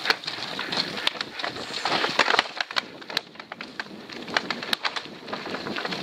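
Mountain bike rattling down a rocky dirt trail: tyres crunching over stones and loose ground, with a run of sharp clicks and knocks as the bike jolts over rocks.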